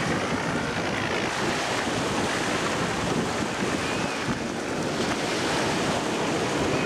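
Steady rushing of wind on the microphone and water, with racing powerboats' engines blended into the noise.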